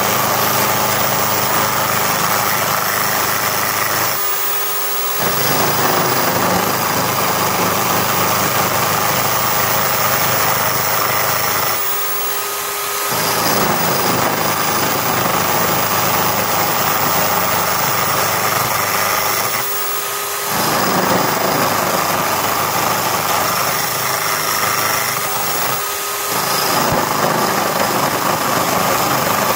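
Corded electric drill, used as a makeshift wood lathe, running steadily with a motor whine while a hand chisel cuts a spinning wooden cylinder, giving a loud scraping noise. The cutting noise drops away briefly four times while the motor keeps running.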